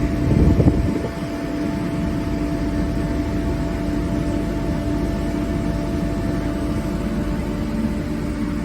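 Kaeser ASK 27 rotary screw air compressor (15 kW) running under load while it charges an air receiver: a steady hum with a constant whine over a noisy rush. A brief louder low rumble comes in the first second.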